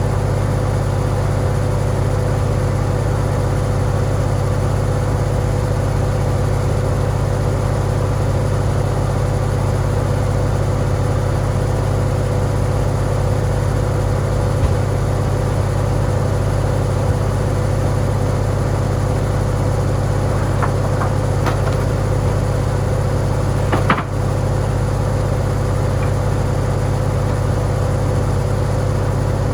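Farmall tractor engine running steadily at a constant speed, with a steady low hum and a constant mid-pitched tone. A few light clicks come past two-thirds of the way, and one sharp knock follows a few seconds later.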